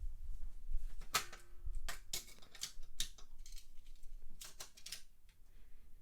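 Die-cast toy cars being handled and set on a plastic race track: a scatter of sharp clicks and clacks, in small clusters about a second in, around two to three seconds, and again near five seconds.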